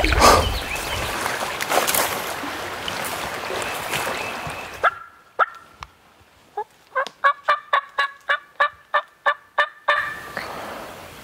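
Turkey calls: a quick run of about fifteen short, sharp notes, about five a second. They come after a steady outdoor hiss cuts off about five seconds in.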